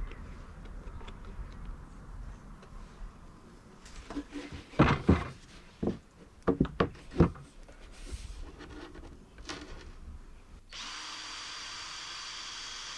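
Chipboard panels knocked and bumped against each other and the plywood base as a side panel is handled into place: a cluster of sharp knocks about four to seven seconds in. A steady high hiss starts abruptly near the end.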